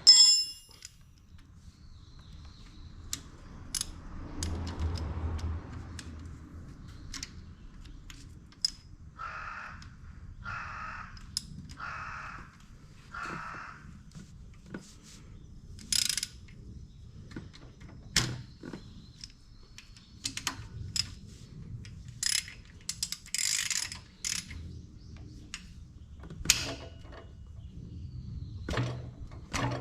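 Metal clinks, clicks and knocks from hand tools and Honda N360 engine parts during a bottom-end teardown, with a run of four short rasping sounds about a second apart partway through.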